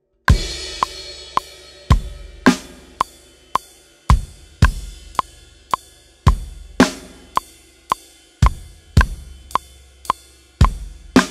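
Acoustic drum kit playing a steady rock groove at 110 beats a minute: bass drum, snare and cymbals, with a metronome click ticking on each beat. It starts just after a four-click count-in.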